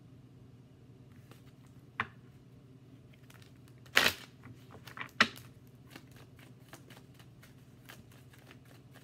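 Tarot cards being handled and shuffled by hand. There is a single click about two seconds in, then two louder bursts of card noise around the middle, about a second apart, followed by a run of soft, quick card ticks.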